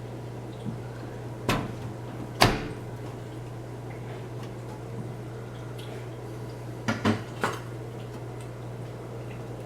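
Sharp clicks and clacks of hard computer parts being handled and fitted during PC assembly: single knocks about one and a half and two and a half seconds in, the second the loudest, then a quick run of three clicks around seven seconds, over a steady low hum.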